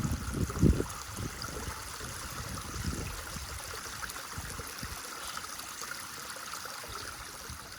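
Steady rushing of a waterfall's stream water, an even hiss of falling and running water. A few dull low thumps sound in the first second, the loudest just under a second in, and another about three seconds in.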